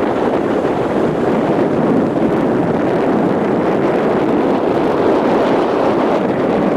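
Strong wind blowing across the camera's microphone: a loud, steady rushing roar with no breaks.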